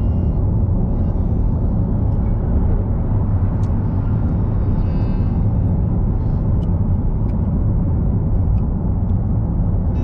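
Steady low road rumble of a car driving on an expressway, heard from inside the cabin: tyre and engine noise with no change in pace.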